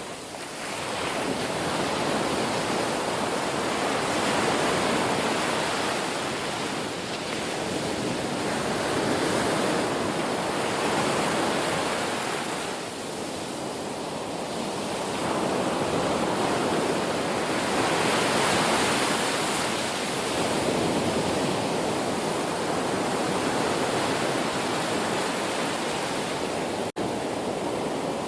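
Ocean surf: waves washing ashore in a continuous hiss that swells and ebbs every few seconds. The sound drops out for a split second near the end.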